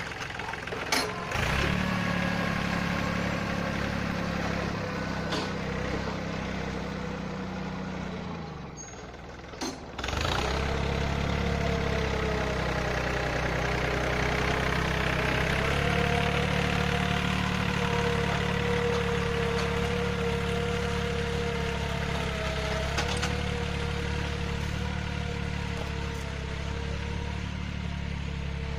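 Yanmar 1145 tractor's diesel engine running steadily, dropping back briefly about a third of the way through and picking up again after a sharp knock.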